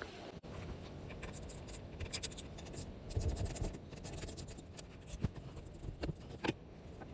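Scattered light clicks and knocks of hand handling, a few louder ones about two, five and six seconds in, over a low background rumble.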